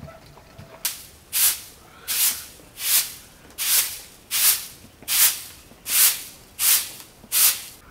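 A broom sweeping a packed-earth floor in ten even strokes, a little more than one a second, starting about a second in.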